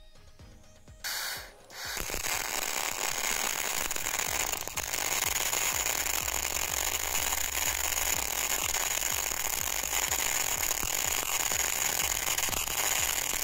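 Semi-automatic wire-feed welding arc striking about two seconds in and then burning steadily with a continuous crackle and hiss; the welder says the voltage was set a bit too high.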